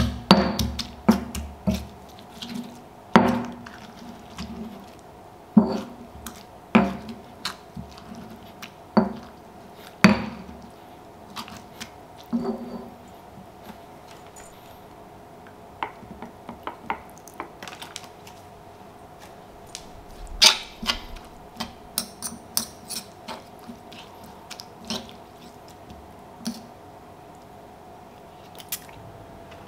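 Granite pestle pounding and grinding lime slices and red chillies in a granite mortar: irregular knocks of stone on stone, heavier and more frequent in the first third, then lighter, sparser taps.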